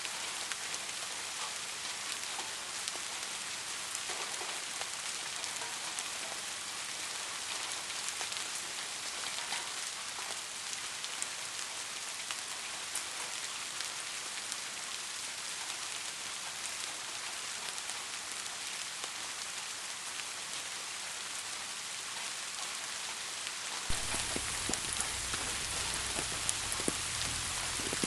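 Steady rain falling, an even hiss with scattered drop taps. About 24 s in it gets slightly louder, with a deeper low rumble and more distinct drops hitting a surface.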